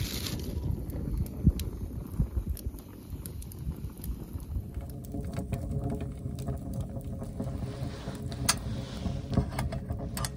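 Burning firewood crackling, with frequent sharp pops and snaps over a low steady rumble.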